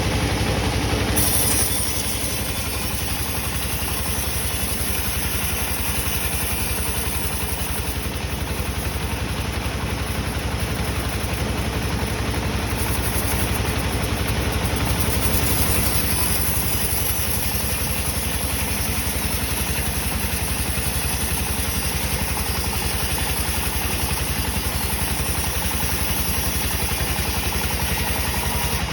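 Wheel saw running steadily, a continuous machine drone with a fast even pulse, a little quieter after about a second and a half.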